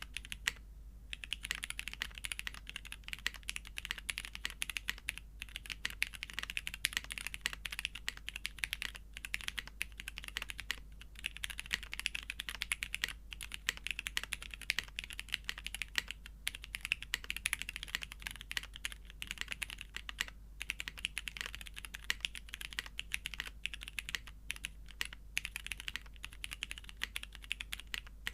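Continuous typing on a custom mechanical keyboard: an SM x TGR Shi Red copper case, top-mounted aluminium plate, retooled Cherry MX Black linear switches lubed and sprung with 55 g springs, GMK keycaps. A fast, even patter of keystrokes with a few short pauses.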